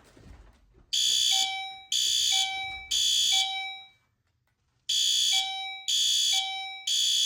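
Fire alarm horns on a demo board sounding in alarm in the temporal-three evacuation pattern: three loud blasts about a second apart, a pause, then three more.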